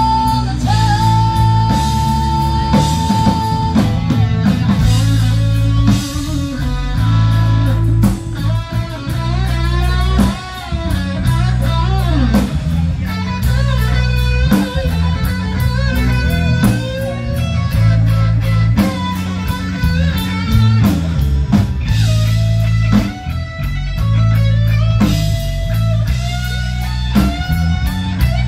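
Live band playing a slow blues-rock song: electric guitar leads with a long held note and bent notes over bass and drums, with no singing.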